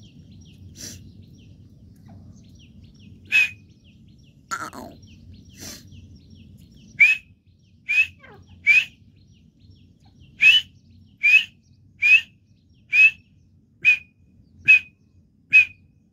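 Teetar (grey francolin) calling: a few scattered sharp notes, then from about halfway a steady run of about ten short, slightly rising notes, a little under one a second, over a faint low hum.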